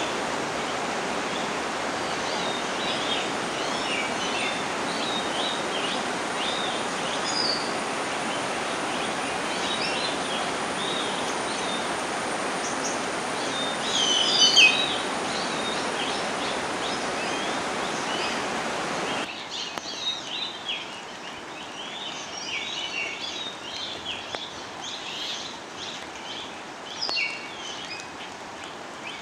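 Many small birds chirping and calling over a steady rushing background noise, with a louder flurry of calls about halfway through. About two-thirds of the way in the rushing noise drops away abruptly, leaving the birdsong over a quieter background.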